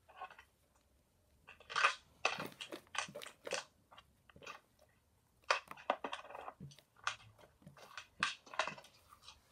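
Slime being kneaded, folded and stretched by hand, giving irregular wet squishes and crackles. The crackles come in two spells, with a short lull in the middle.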